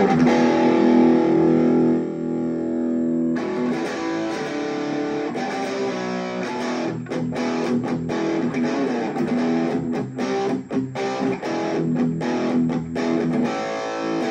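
Electric guitar played through an Overdrive EA-15 practice amp with its gain at about noon, giving a fair amount of distortion. A chord rings out for about three seconds, then come changing chords with short, choppy stopped strums, and a held chord near the end.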